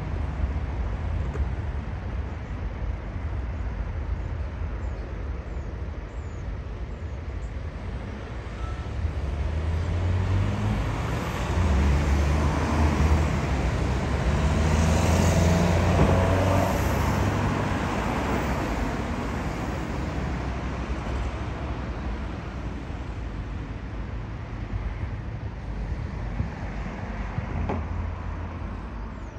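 Jet airliner passing low overhead on final approach, swelling to its loudest about halfway through and then fading away. Strong wind buffets the microphone throughout with a heavy low rumble.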